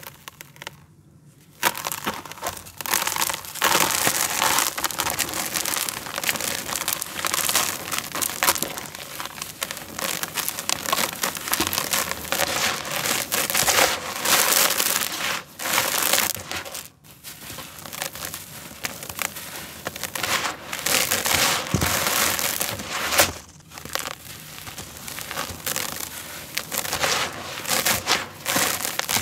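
Hands crushing and crumbling dry red dirt blocks, then kneading and raking the loose grains in a plastic tub: dense, gritty crunching and grainy rustling. It starts about two seconds in and has a few brief pauses.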